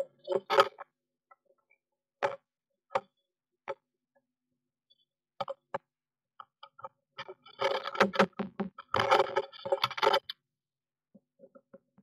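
Sharp knocks on a wooden nest box from a woodpecker pecking at it from outside: single taps a second or so apart, then a rapid flurry of strikes for about two and a half seconds near the end.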